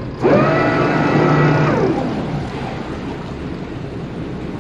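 A motor yacht's electric thruster running in one burst of about a second and a half: its whine rises as it spins up, holds, and falls away as it stops, over a steady background rumble.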